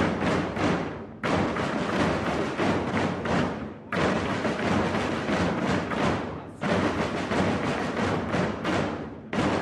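A group of drummers playing Portuguese bass drums (bombos) together in a dense, driving rhythm. A loud new phrase comes in about every three seconds.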